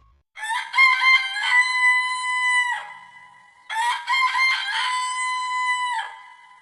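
A rooster crowing twice. Each crow starts in short broken notes, then holds one long note for about a second and a half before breaking off.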